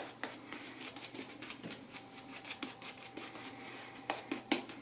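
Shaving brush being worked through soap lather, its bristles making a soft, scratchy swishing, with a few sharper clicks near the end.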